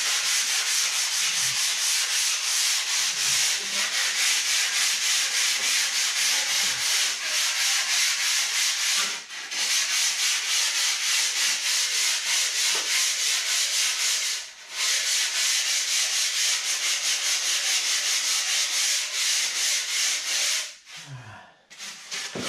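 Hand sanding the edge of pink foam insulation board with a sanding block, shaping a 45-degree bevel. Quick back-and-forth scraping strokes, briefly interrupted twice, stopping shortly before the end.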